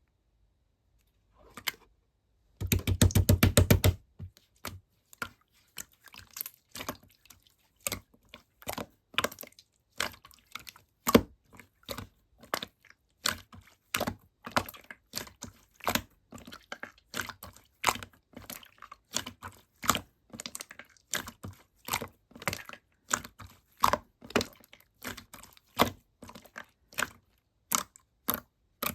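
Slime being pressed and folded by hand, giving sharp clicking pops about two to three times a second, after a quick run of rapid clicks about three seconds in.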